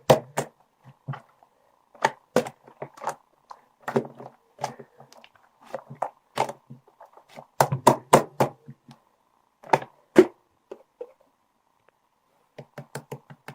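Irregular sharp taps and knocks, coming in quick clusters with short gaps and a pause about two-thirds of the way through.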